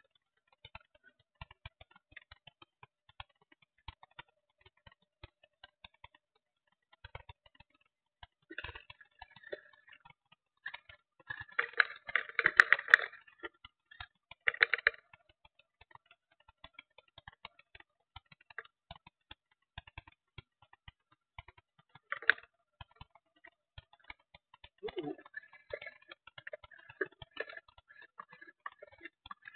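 Sparse, irregular clicks and ticks, with a louder cluster of rapid clicking and rattling about twelve seconds in.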